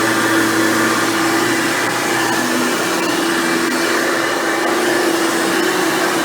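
Hoover Futura Dimension upright vacuum cleaner running steadily: a constant motor hum over the rush of air.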